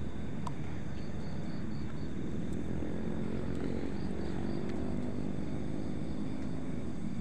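A steady low engine-like drone of a distant motor, with faint high chirps repeating in short runs over it.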